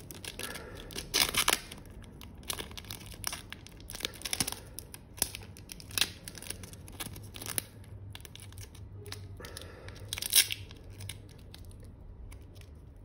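Clear adhesive tape pulled off the roll in ripping strips and wound tightly around a stack of lead electrode plates and paper separators. The loudest pulls come about a second in, about four seconds in and about ten seconds in.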